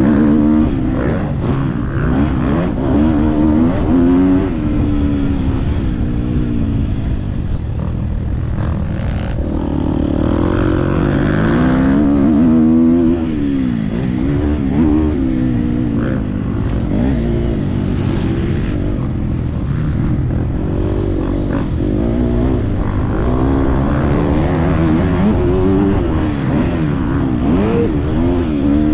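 Motocross bike engine at full racing pace, its revs rising and falling again and again as the rider accelerates, shifts and backs off around the track.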